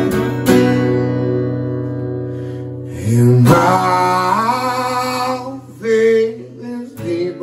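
Acoustic guitar strummed twice, its chord left ringing, then a man's singing voice joins about three seconds in over the guitar.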